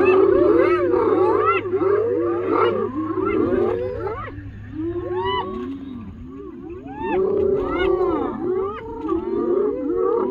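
A pack of spotted hyenas calling all at once as they mob a male lion: many overlapping whoops and squeals, each rising and falling in pitch, quieter for a couple of seconds around the middle.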